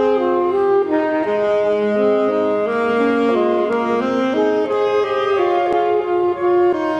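Two saxophones playing a duet in two-part harmony, held notes changing pitch every half second or so.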